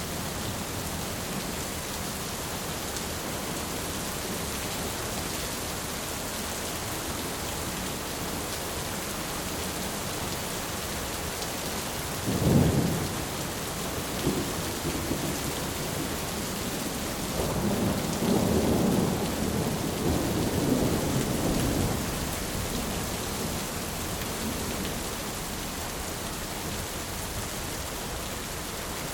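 Heavy steady rain with thunder: a sharp thunderclap about halfway through, then a longer rolling rumble of thunder a few seconds later.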